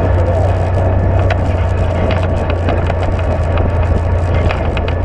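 UTV engine running at a steady drone while the vehicle drives along a dirt trail, with tyre and trail noise and scattered sharp clicks and rattles from the machine jolting over the rough ground.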